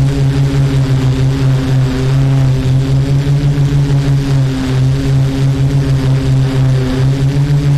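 Multirotor drone's propellers and motors buzzing steadily in flight, a low hum with a fast flutter in its loudness, over a rushing of air on the drone's microphone.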